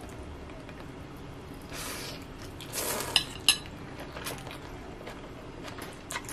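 Someone slurping instant noodles off a fork, with a fork clinking sharply on the plate twice about three seconds in and a few lighter clicks of cutlery later.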